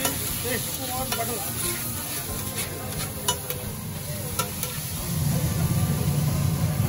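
Metal spatula scraping and clacking on a large flat tawa griddle as rice and red masala are stirred and chopped together, with butter and masala sizzling. A low steady hum grows louder about five seconds in.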